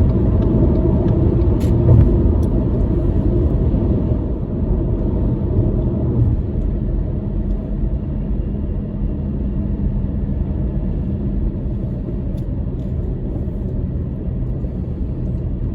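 Steady road and engine noise inside a moving car's cabin, a low rumble that eases a little after about four seconds.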